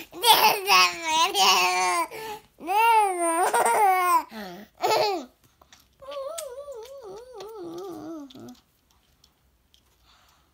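A toddler girl babbling and laughing in high-pitched squeals. About six seconds in, with a pacifier in her mouth, she makes a quieter, wavering hum that stops after about two and a half seconds.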